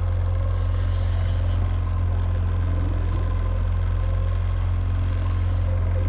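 Boat's outboard motor running steadily while trolling, a low, even drone.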